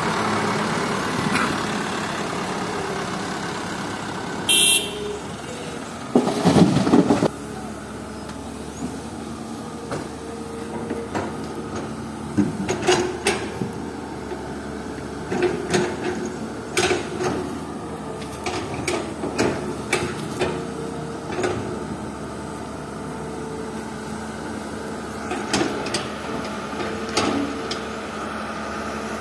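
Diesel engines of an excavator and dump truck running steadily while the excavator loads rocky fill into the truck. A heavy crash of soil and rock dropping into the steel bed about six to seven seconds in, with a short high hiss just before it and scattered clanks and knocks later on.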